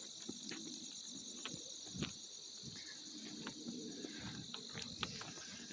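Steady chorus of crickets, a constant high trill, with a few soft crunches of footsteps in dry fallen leaves.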